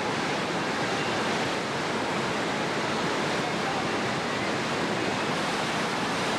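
Steady rush of whitewater pouring over a river rapid's drop.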